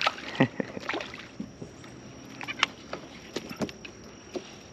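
A white bass splashing at the surface as it is reeled in, then scattered knocks and clicks as it is swung aboard and handled against the plastic kayak.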